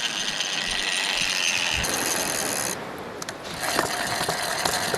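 Shark-fishing reel ratcheting steadily as a hooked shark runs and pulls line off against the drag. The sound weakens a little past halfway and picks up again about a second later.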